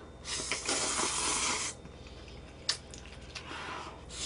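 A person slurping ramen noodles from a bowl: a long, loud slurp, then a sharp click, then a shorter, softer slurp near the end.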